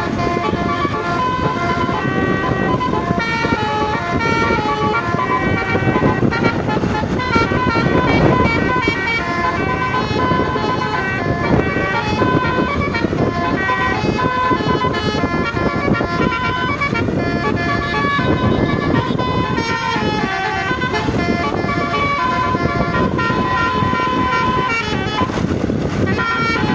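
Multi-tone basuri "telolet" bus horn playing a melody of short, stepping notes without a break, over a steady low rumble.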